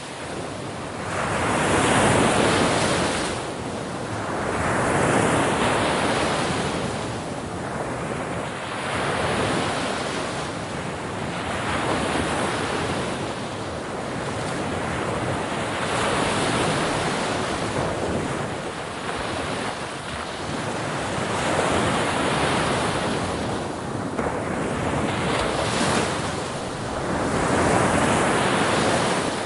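Ocean surf breaking against a shore: a steady wash of waves that swells and ebbs every three to four seconds.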